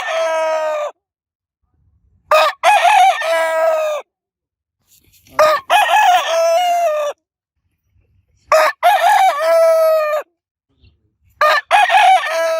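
A rooster crowing over and over, a full crow about every three seconds, each a short sharp opening note then a long drawn-out final note. The tail of one crow starts it off, and four more follow.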